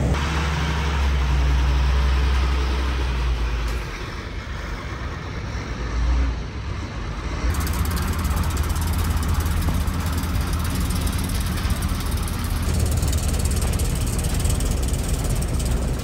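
City street noise: a steady low engine-like rumble of traffic, changing abruptly about four and again about seven and a half seconds in.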